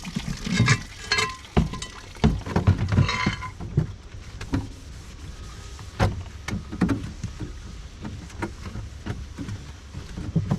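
Cookware knocking and clattering as it is handled and set down: a quick run of knocks, some ringing briefly, in the first few seconds, then scattered single knocks.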